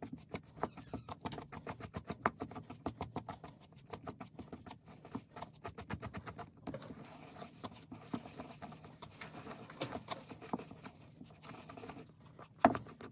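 Wooden chopsticks stirring flour and hot water into a crumbly dough in a stainless steel bowl: a fast, irregular run of light clicks and scrapes against the metal, with one louder knock near the end.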